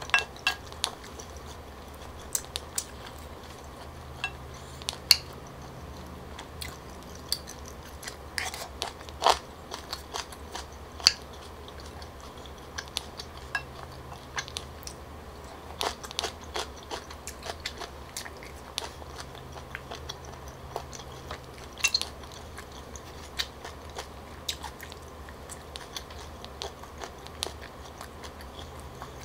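Chewing and mouth sounds of someone eating stir-fried tteokbokki rice cakes with seafood, with scattered sharp clicks of wooden cutlery against a ceramic bowl.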